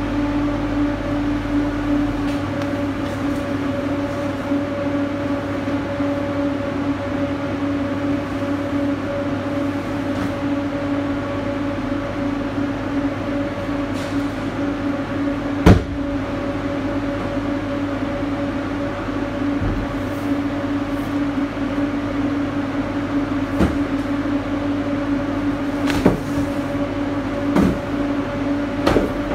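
Steady mechanical hum of a refrigerated truck's cooling unit running in the cargo box, with a few knocks of cardboard boxes being handled. The sharpest knock comes a little past halfway.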